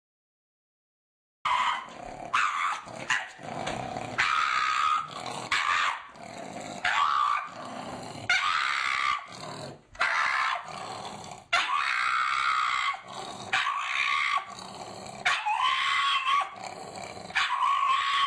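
A pug making a long run of short growling barks, one after another, starting about a second and a half in.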